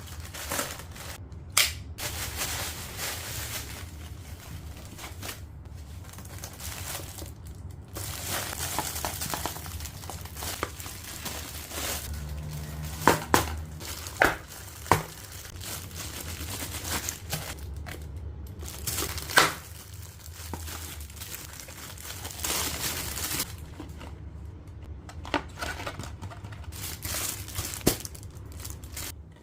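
Crinkly packaging being handled and torn open by hand: irregular rustling and crinkling, broken by a few sharp clicks and snaps, with a steady low hum beneath.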